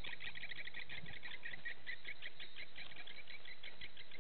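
A steady chorus of many small calling animals, rapid high-pitched chirps repeating many times a second and overlapping without a break.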